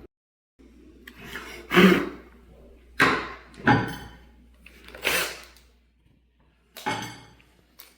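About five short knocks and scrapes, spaced a second or two apart and loudest about two seconds in: tools or parts being handled and set down on a wooden surface.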